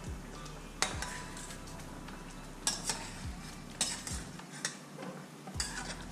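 Utensils stirring and scraping in a stainless steel frying pan of simmering cream sauce, with about five sharp clinks of the utensil against the pan at irregular intervals.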